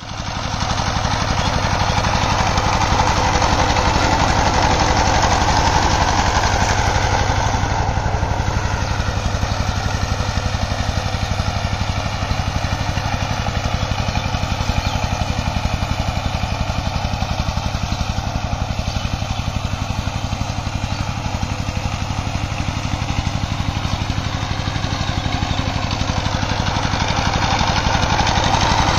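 Two-wheel power tiller's single-cylinder diesel engine running steadily under load as its rotary tiller churns the soil, a fast, even chugging.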